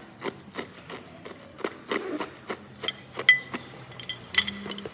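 Hard ice being bitten and crunched close to the microphone: a quick, irregular run of sharp cracks, with a couple of brighter, ringing clinks near the end.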